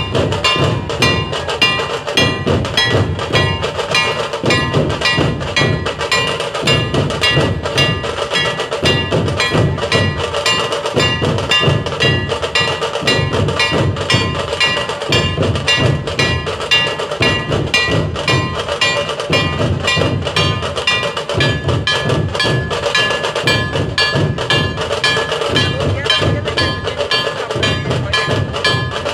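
Fast, continuous percussion: bells and clashing cymbals ringing without pause over pulsing drumming.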